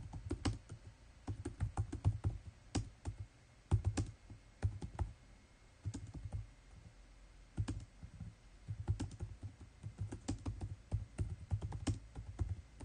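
Typing on a computer keyboard: runs of quick keystrokes in uneven bursts with short pauses, stopping just before the end.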